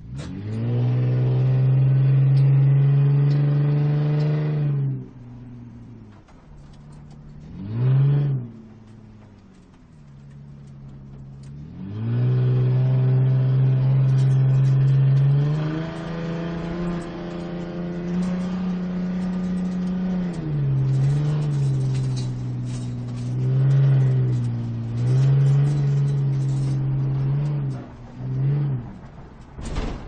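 Sports car engine revving close by. It comes in bursts: a long rev that cuts off after about five seconds, a short throttle blip, a longer pull with the pitch stepping up and then back down, and several quick blips near the end.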